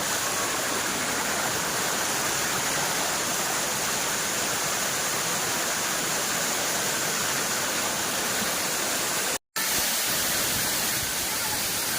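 Waterfall rushing: a steady, even wash of falling water. It is broken by a brief cut about nine and a half seconds in, then carries on unchanged.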